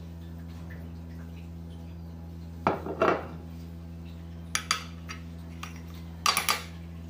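A spoon clinking against a glass in three short clusters of quick knocks, each briefly ringing, while honey is spooned into the glass. A steady low hum runs underneath.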